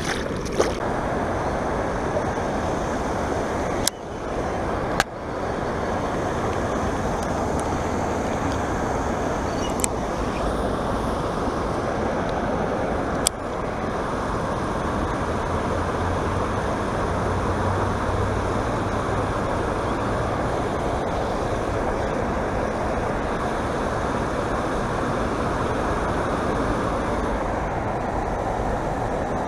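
Steady rush of water from a small waterfall and stream running into a pond, with a few sharp clicks from handling in the first half.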